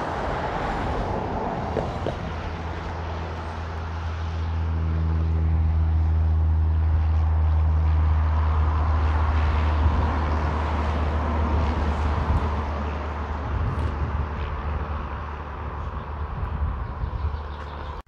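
Piper PA-38 Tomahawk light trainer's single piston engine and propeller at full take-off power, a steady low drone that swells as the aircraft rolls past and lifts off, then slowly fades as it climbs away. It cuts off suddenly at the very end.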